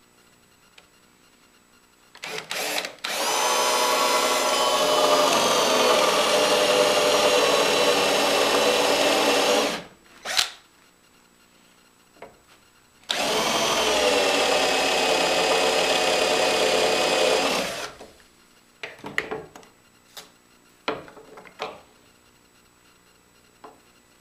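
Cordless drill with a Forstner bit boring a shallow round relief into a wooden jig piece: two steady runs of motor whine and cutting, the first about seven seconds long after a couple of short trigger blips, the second about five seconds. A few light knocks and taps follow as the piece is handled.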